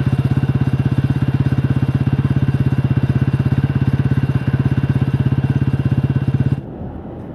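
Motorcycle engine idling with a fast, even beat, which cuts off abruptly near the end.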